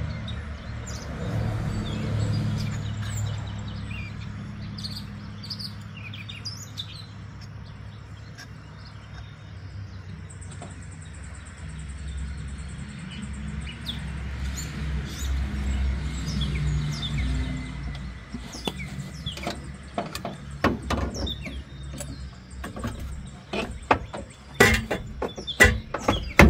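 Birds chirping in the background while a squarebody Chevy pickup's exhaust pipe is worked into place by hand. From about two-thirds of the way through comes a run of sharp metal clinks and knocks, loudest near the end.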